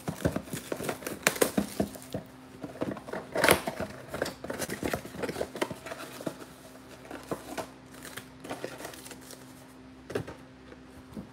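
Plastic shrink wrap crinkling and tearing as it is stripped off a trading-card box, followed by the paperboard box flaps being opened and the card packs sliding out. Irregular crackles and rustles, busiest in the first half and thinning out later.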